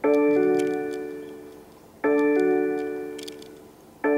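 BMW 118i reversing warning chime in the newer 2017 version: a soft, piano-like chord that rings and fades away, repeating every two seconds while the car is in reverse. It sounds twice, and a third chime begins right at the end.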